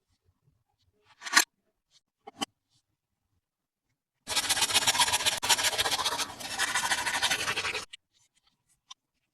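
Toy packaging being handled during an unboxing: two short scrapes, then a dense, crackling scrape lasting about three and a half seconds.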